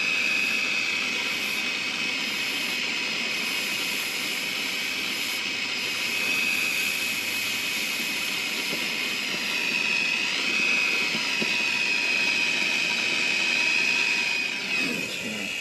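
Air-acetylene torch with a number 11 tip burning steadily: an even rushing hiss with a high steady whistle in it.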